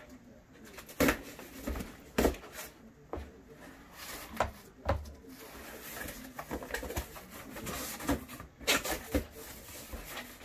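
Long cardboard shipping box being cut and pulled open by hand: a large knife working at the tape and cardboard, then the flaps torn and pried apart, giving an irregular string of sharp knocks, rips and rustles.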